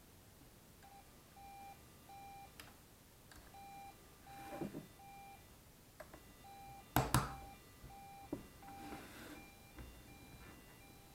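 Toy ambulance's electronic sound signal: short beeps at one steady pitch, about two a second. A few clattering knocks come through, the loudest about seven seconds in.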